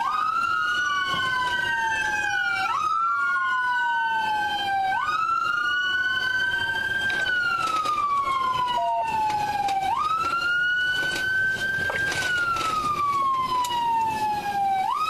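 Two police car sirens wailing out of step: one jumps up in pitch and slides slowly down about every two and a half seconds, the other rises and falls more slowly.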